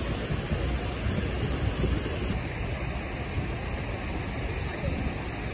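Shallow stream running over rocks, a steady rushing noise with wind rumbling on the microphone; the hiss drops a little about two seconds in.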